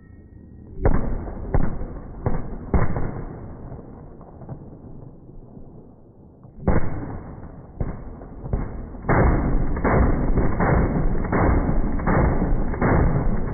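HK51 short-barrelled 7.62×51mm machine gun firing, heard slowed down: a few deep single shots, a pause, then a sustained burst from about nine seconds in with the drawn-out shots coming roughly two a second.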